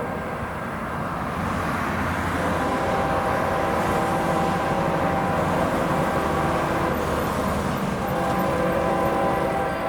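A train rolling past: the steady rumble and rush of diesel locomotives and cars on the rails.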